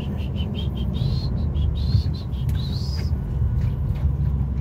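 Loaded truck running slowly, heard from inside the cab as a steady low rumble. Over it come a quick run of short high chirps in the first two seconds and a few rising high squeaks about one to three seconds in.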